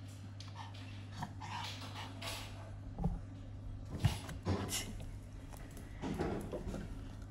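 A fennec fox scrambling at a cat's fabric hammock in a wire crate: rustling and scuffing of quilted fabric, with sharp thumps about three and four seconds in, over a steady low hum.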